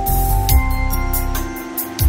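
Background music: held notes over a steady drum beat, with the low end dropping out briefly before the beat comes back near the end.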